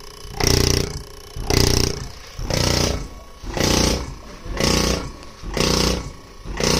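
Loud, rhythmic buzzing bursts with a hissing edge, about one a second, each lasting about half a second.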